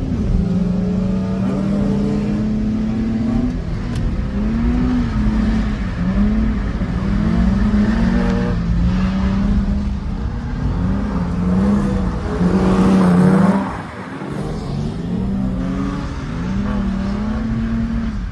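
A drift car's engine revving, its pitch swinging up and down again and again. It is loudest about thirteen seconds in, then drops sharply.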